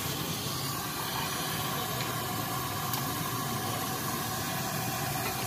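Steady hissing background noise with a low hum underneath and no distinct events.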